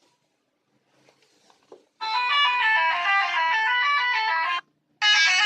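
Bus telolet horn, a multi-tone musical horn, playing a tune in loud runs of stepped notes. It starts abruptly about two seconds in, breaks off for a moment near the end and starts again.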